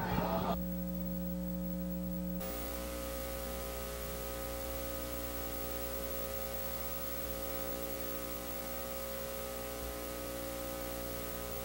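Steady electrical mains hum with a layer of hiss and no other sound. The hiss gets louder a couple of seconds in.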